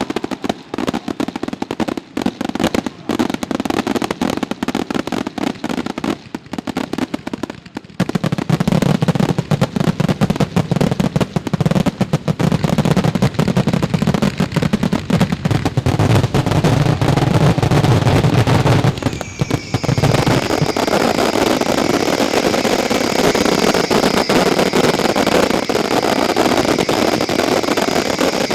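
Mascletà firecrackers going off in rapid, dense succession, thickening about eight seconds in into a continuous, heavy barrage, the ground-shaking finale. Near twenty seconds the cracking gives way to a steady hiss with two high, steady whistling tones.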